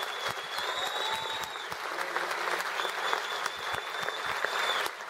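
Theatre audience applauding, a dense steady patter of many hands clapping. Over it a long high whistle sounds twice, near the start and again past the middle.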